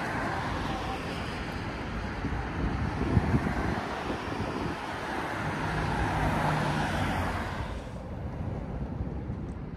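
Road traffic on a city street: vehicles passing with tyre and engine noise that swells and then fades away about eight seconds in.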